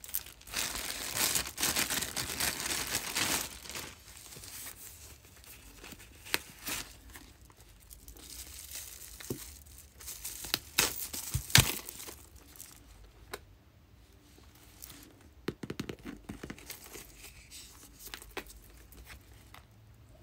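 Clear plastic wrapping crinkling and rustling as it is pulled off a small leather zip card case, loudest over the first few seconds, then softer handling with scattered crinkles and a few sharp clicks, one loud click about halfway through.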